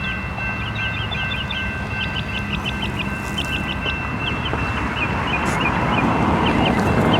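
Train rolling past with a low rumble and steady high-pitched squeal tones, overlaid by clusters of short, quick high chirps. A rising rush of noise builds near the end.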